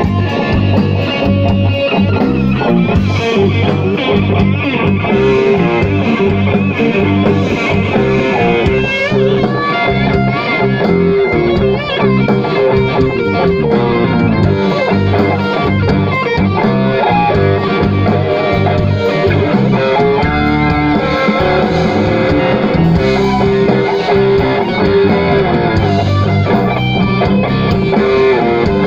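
Live blues band playing an instrumental passage, an electric guitar leading over bass and drums, loud and steady throughout.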